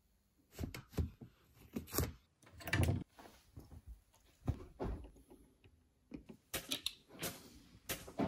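A string of short household handling sounds: separate clicks, knocks and light thuds with some rustling of knitwear, as someone dresses and moves things around a small room. A cluster of quick clicks comes near the end.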